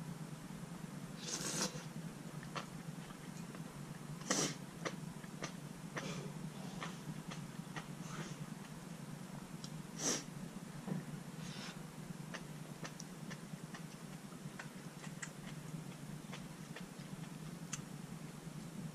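Close-up eating sounds from a bowl of malatang noodle soup: many small wet clicks and smacks of chewing, with three short, louder breathy slurps or sniffs spread through. A steady low hum runs underneath.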